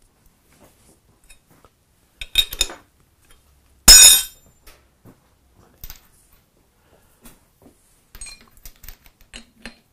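Metal-on-metal clinks and clanks of a steel 6-inch Bison three-jaw chuck being fitted onto a milling machine's universal head: a short rattle about two seconds in, one loud ringing clank about four seconds in, then light clinks of a hand tool against the chuck near the end.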